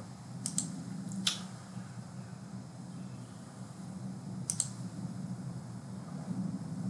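Computer mouse clicks: a quick pair about half a second in, a single click just over a second in, and another pair about four and a half seconds in, over a steady low hum.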